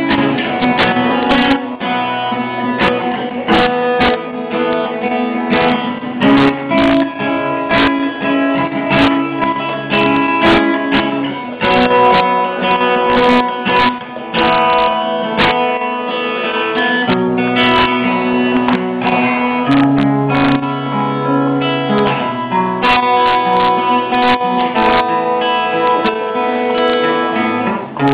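Guitar music: an acoustic guitar plucked and strummed, with held bass notes and chords changing every second or two.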